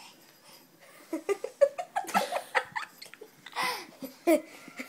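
Giggling laughter in quick repeated bursts, starting about a second in.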